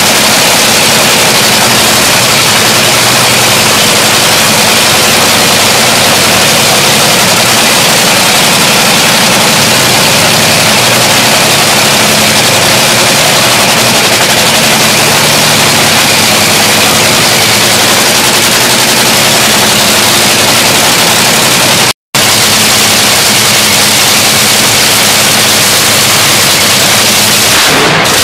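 Nitromethane-burning 500-cubic-inch supercharged Hemi engine of a Top Fuel dragster running a warm-up, so loud that it fills everything as a harsh, steady noise. The sound cuts out for an instant about two-thirds of the way through.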